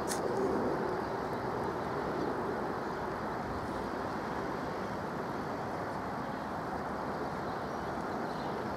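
Steady, even jet engine noise from an Avro RJ85's four turbofans as it climbs out overhead, with a faint steady tone that fades over the first couple of seconds. A brief click right at the start.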